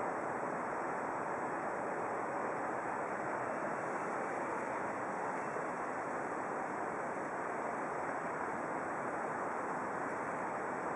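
The flooded Elbe rushing steadily past moored paddle steamers and their landing pontoons, an even rushing noise with a faint steady high tone above it.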